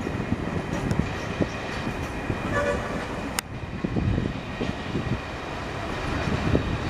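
Passenger coaches rolling past on the track, their wheels clattering irregularly over rail joints, with a short horn toot about two and a half seconds in.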